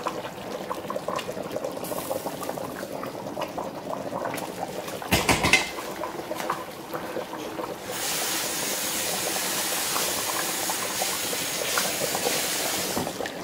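A pot of sauce bubbling on the stove. There is a clatter about five seconds in, and a steady hiss from about eight seconds on.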